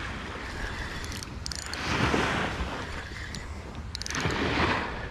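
Surf washing onto the beach, swelling twice, over the low rumble of wind on the microphone. Short runs of fine clicking come from a spinning reel being cranked.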